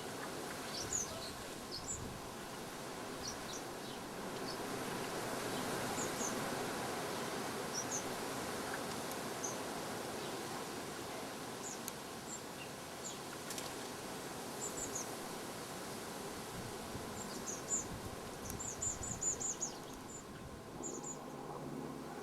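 Small garden birds chirping: short, high calls scattered throughout, with a quick run of chirps near the end, over a steady outdoor background hiss.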